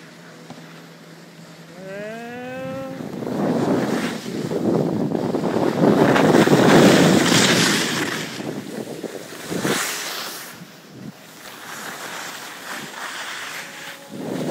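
Skis sliding and scraping over snow, with wind rushing over the microphone, swelling to its loudest about halfway through and easing off after about ten seconds.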